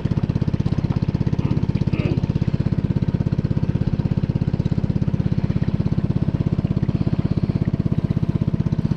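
A small boat's engine running steadily under way, with a fast, even throb.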